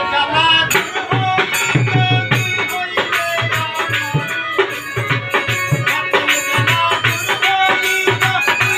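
Live Bengali Baul folk song: a male singer with harmonium accompaniment over a steady drum beat and rattling percussion.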